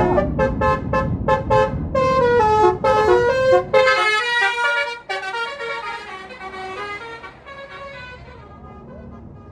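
A tour bus's basuri (telolet) musical horn playing a quick tune of short, changing notes over the bus engine's rumble. After about five seconds the horn and engine fade away as the bus moves off.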